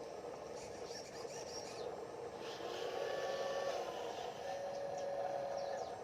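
Small electric motors and gearing of a radio-controlled model construction vehicle running with a steady whine, several held tones coming in and shifting in pitch and getting louder about halfway through, then cutting off at the end.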